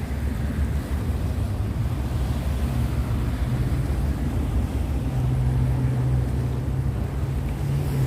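Wind buffeting the microphone with a heavy low rumble. A steady low hum comes in about two and a half seconds in and grows stronger about halfway through.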